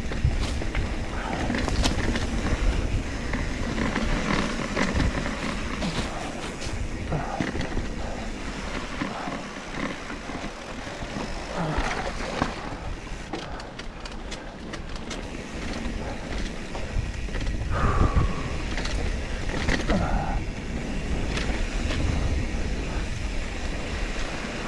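Mountain bike riding fast down a dirt singletrack: tyre noise on the dirt, with the bike rattling and clicking over bumps and rocks and wind rumble on the microphone. Louder knocks come about twelve seconds in and again near eighteen seconds.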